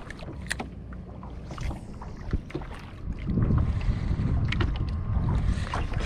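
Water lapping against a small boat's hull with wind buffeting the microphone: a low, uneven rumble that grows louder about halfway through, with a few light clicks.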